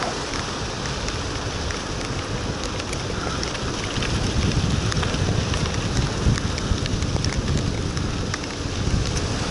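Steady rain with wind rushing over the microphone, and scattered sharp ticks of drops striking close by.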